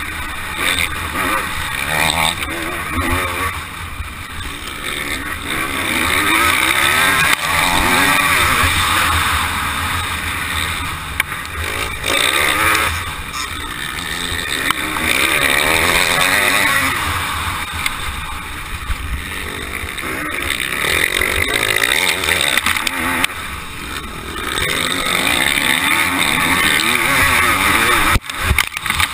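Motocross bike engine revving up and easing off as the rider throttles through corners and along a straight, the level swelling and dipping every few seconds, with wind buffeting the helmet-mounted microphone. A few sharp knocks come near the end.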